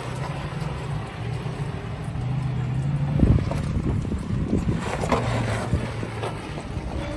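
Nissan Xterra's engine running at low speed as the SUV crawls up bare sandstone, a steady low hum under wind buffeting the microphone. A few knocks and scrapes come through about three seconds in and again around five seconds.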